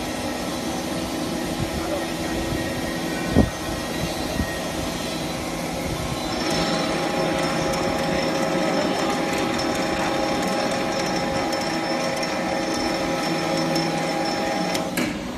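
Industrial machinery running steadily with a hum and a whine of several steady tones. There is one sharp knock about three seconds in. The sound grows louder and more tonal about six seconds in, then changes abruptly near the end.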